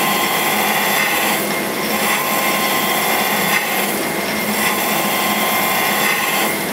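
Cam grinder's wheel grinding a lobe of a solid roller Ford FE camshaft: a steady grinding noise over the machine's hum, changing in a regular cycle about every two and a half seconds. The base circle has cleaned up, and the wheel is only just taking a little off the nose.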